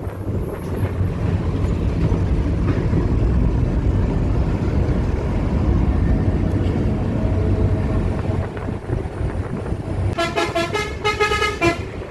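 Steady low rumble of road traffic and engine noise, then a vehicle horn honking in a few short blasts near the end.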